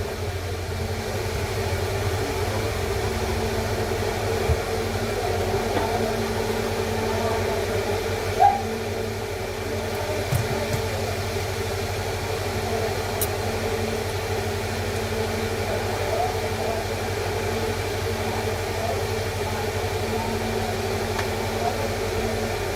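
Steady mechanical hum: several fixed tones over an even background noise, with no change in level.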